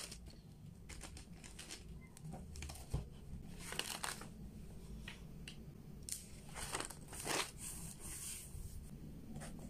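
Paper pages of a spiral-bound grid notebook being turned and smoothed flat by hand: a series of soft rustles and swishes, thickest about four seconds in and again from six to eight and a half seconds in, with a single light knock just before three seconds.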